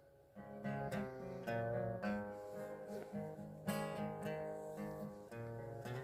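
Guitar playing a country song's intro, alternating bass notes with strummed chords, starting about half a second in.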